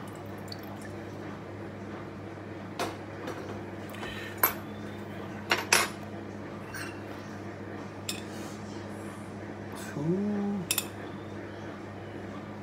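Kitchenware clinking: a drinking glass, teaspoon and ceramic bowl knocked and set down on a counter, with sharp clinks every second or few, the loudest about four and a half and six seconds in. A brief voice sound comes about ten seconds in, over a steady low hum.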